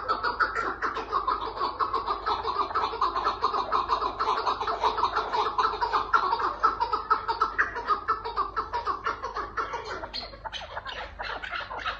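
Chukar partridge (Şengal hunting partridge) calling: a rapid, steady run of repeated chuck notes that eases somewhat about ten seconds in.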